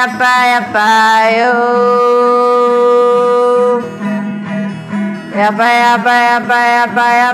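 Improvised music: a strummed acoustic guitar keeps a steady rhythm over a low sustained tone, breaks off for a long held note and a softer passage midway, then starts strumming again.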